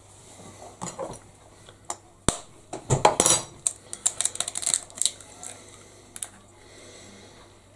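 A metal spoon tapping and cracking eggshells over a glass mixing bowl: one sharp tap, then a quick cluster of clicks and scrapes as the shell is broken open, and a few lighter clicks after.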